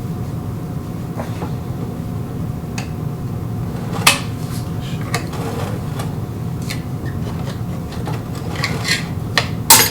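Flat-blade screwdriver prying up the metal retaining clips that hold the water pump on a Whirlpool/Kenmore direct-drive washer motor: scattered metal clicks and clinks, the sharpest about four seconds in and just before the end, over a steady low background hum.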